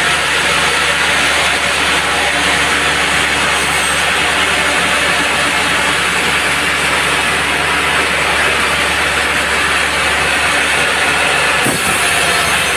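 Band sawmill running steadily, its blade cutting through a log, with a short knock near the end.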